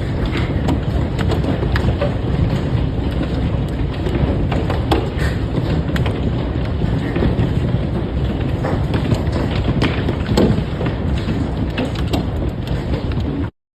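Hailstorm: hailstones pelting down, many sharp cracks of stones striking hard surfaces over a dense, steady roar. It cuts off suddenly near the end.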